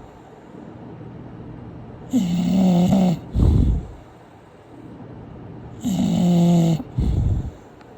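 English bulldog snoring in two regular cycles a few seconds apart. Each cycle is a drawn-out snore with a slightly falling pitch, followed by a shorter, low rumbling snort.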